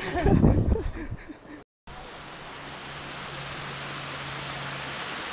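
Steady rushing of a waterfall pouring down a rock face, starting after a short break about two seconds in and growing slowly louder.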